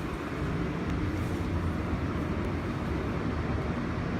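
Steady low rumble of subway station background noise, with no distinct events.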